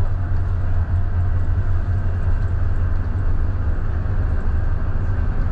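Scania K320IB bus's five-cylinder diesel engine running under way, a steady low rumble with road noise.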